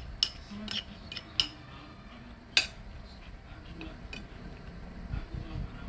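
Metal spoon clinking and tapping against a ceramic plate while rice is scooped: a handful of short, sharp clinks in the first half, the loudest about two and a half seconds in.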